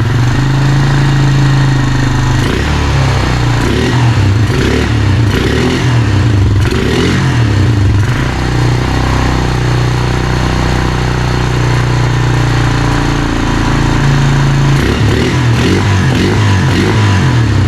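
Honda Rancher TRX350 ATV's 350cc air-cooled engine running after a carburetor rebuild, its speed rising and falling a few times: it now keeps running after a hard-start, won't-stay-running condition.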